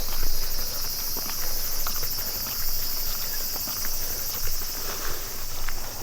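Footsteps of someone walking, about two steps a second, over a steady high-pitched chorus of insects.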